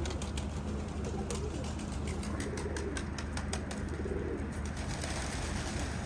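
Domestic pigeons cooing: several low coos one after another over a steady low hum.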